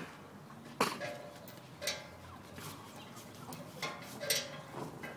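Pit bull tugging and jerking on a springpole rope toy: four short sharp sounds, each with a brief squeak.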